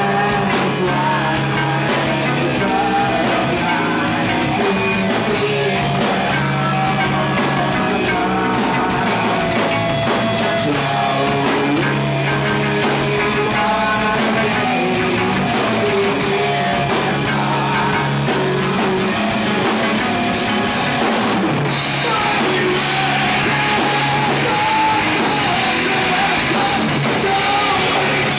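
A rock band playing loud and live: electric guitars, bass and a drum kit, with a singer's vocals over them. The cymbals grow brighter about three-quarters of the way through.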